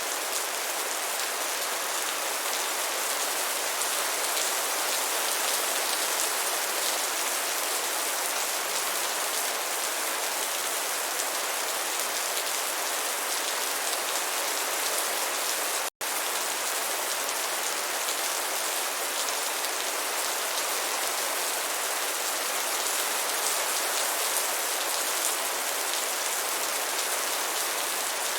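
Steady rain falling, an even, unbroken hiss, with a split-second dropout to silence about sixteen seconds in.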